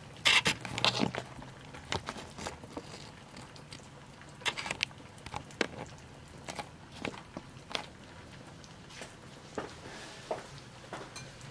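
Scattered light clicks and knocks of kitchen items being handled, loudest in a cluster during the first second and sparser after that, over a faint low hum.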